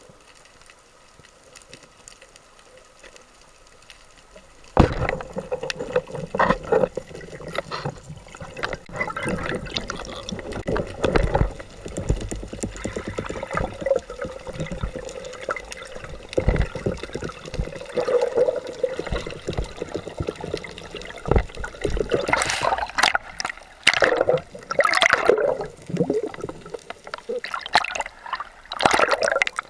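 Water noise from a camera mounted on a speargun, underwater: nearly quiet for the first few seconds, then a sudden loud knock about five seconds in. After it comes continual bubbling and rushing water with scattered knocks, and a run of louder splashes near the end as the gun comes up through the surface.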